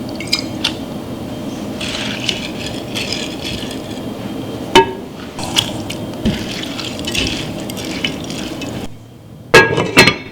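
Kitchen work sounds: dishes and utensils clinking, with liquid being poured. Sharp clinks come about halfway through and twice more near the end.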